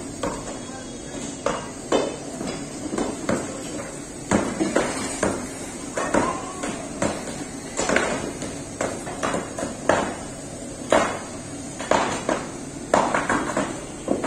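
Iron crowbars striking and prying at concrete slabs and masonry, making irregular clanks and knocks about one or two a second.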